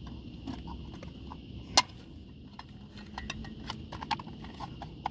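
Light clicks and taps of a metal fan-control box and its flexible metal conduit being handled, with one sharper click a little under two seconds in and a quick run of small ticks around three to four seconds in, over a steady faint high hiss.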